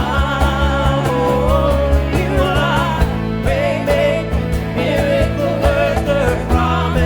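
Worship band playing a slow contemporary worship song, with sustained chords and a steady beat.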